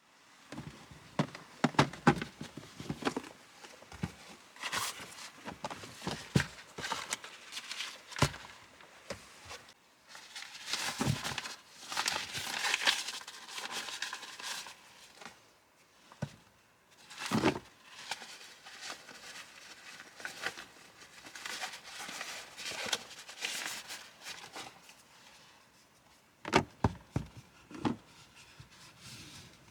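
Objects being handled at close range: irregular knocks and clicks with bursts of rustling and crinkling, like packaging or a bag being handled. The longest rustle comes about ten to fourteen seconds in.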